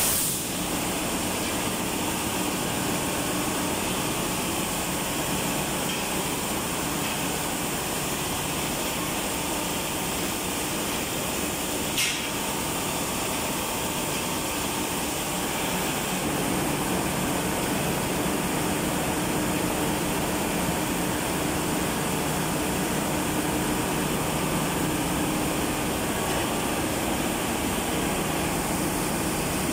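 Zichai marine diesel engine running steadily just after being air-started, a constant heavy mechanical drone. There is a single sharp click about twelve seconds in.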